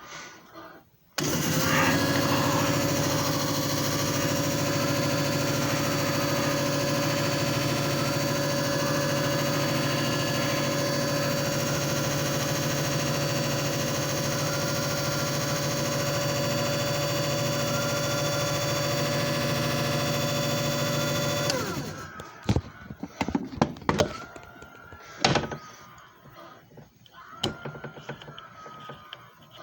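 JFJ Easy Pro disc repair machine's motor starting abruptly and spinning up, then running steadily with a whine for about twenty seconds before winding down. A few sharp clicks and knocks follow near the end.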